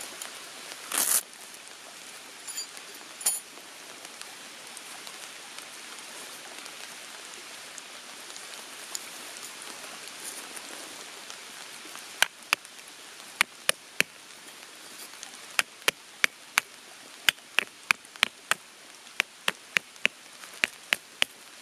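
Raindrops beginning to hit a pitched tarp: scattered sharp ticks, irregular and several a second, starting a little past halfway, over a steady background hiss. A short rustle of the tarp being handled about a second in.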